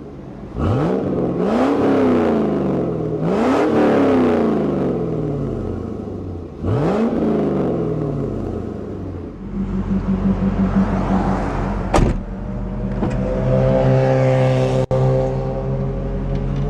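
2001 Chevrolet Camaro Z28's 5.7-litre (350 cu in) V8 revved three times, each rev falling slowly back, then settling to a steady idle with a sharp click about twelve seconds in.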